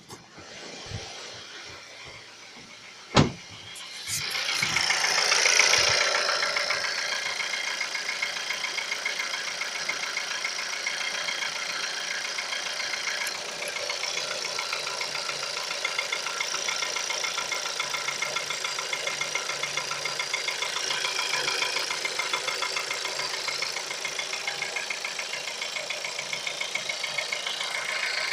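A sharp thump about three seconds in, then a car engine starting cold about four seconds in and settling into an idle with a steady, rhythmic knock. The knock is heard on a cold engine.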